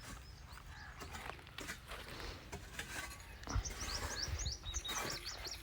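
Small birds chirping in quick runs of short high notes, mostly in the second half, over faint scattered knocks and scrapes.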